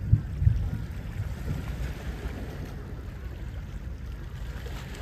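Wind rumbling on the microphone, with two strong gusts in the first half second and then a steadier low rumble, over faint lapping of small waves on shore rocks.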